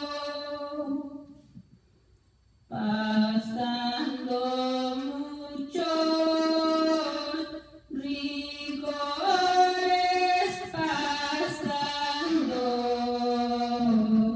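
A woman singing a Spanish Christian praise song unaccompanied, in long held notes, breaking off briefly about two seconds in before going on.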